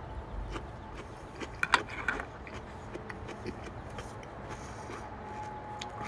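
A crisp crinkle-cut Grillo's lemon pepper pickle slice being bitten and chewed: a few sharp crunches about a second and a half to two seconds in, then quieter chewing.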